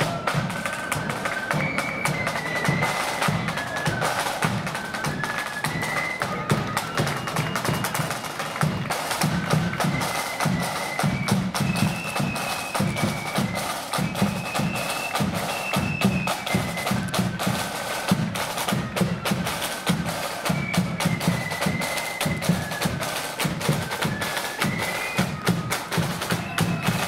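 Blood-and-thunder marching flute band playing a tune: a high flute melody over rattling snare drums and a steady, heavy bass drum beat.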